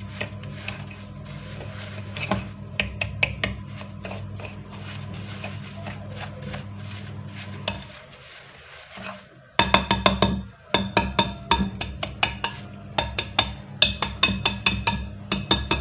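A utensil and a small glass scraping and clinking against a glass mixing bowl while damp semolina is stirred, over a steady low hum. The clinks grow louder and come in quick runs from about halfway through.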